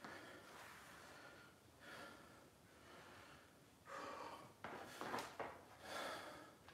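A man breathing audibly through nose and mouth from the effort of a single-leg balance exercise, about five soft breaths a second or so apart, stronger in the second half, with two light clicks about two-thirds through.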